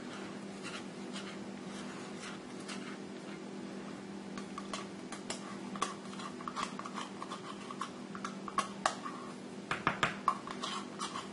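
Small spoon clicking and scraping against plastic cups and a plastic mixing bowl while colorant is stirred into soap batter, in quick irregular ticks that grow busier after a few seconds. A steady low hum runs underneath.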